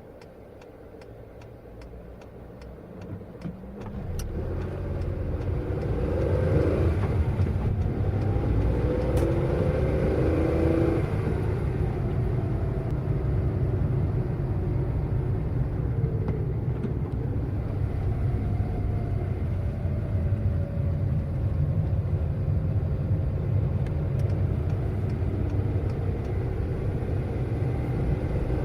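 Car pulling away and accelerating: evenly spaced ticking over a quiet idle, then about four seconds in the engine picks up, its pitch rising and falling through the gears. It settles into a steady engine and road rumble at speed.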